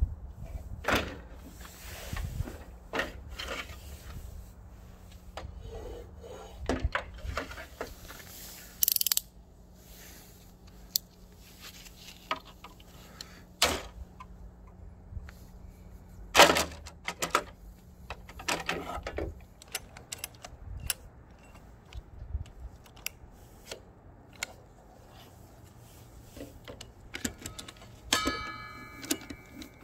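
Scattered clicks, clacks and knocks of a Bosch GTS 635-216 table saw's clear plastic blade guard and lever clamps being handled and fitted over the blade, with one sharper knock midway and a brief ringing rattle near the end.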